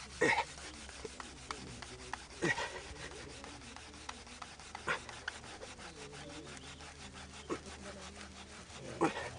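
Friction fire-making: rapid, even back-and-forth sawing strokes rubbing against dry wood to raise an ember, with a louder stroke every couple of seconds.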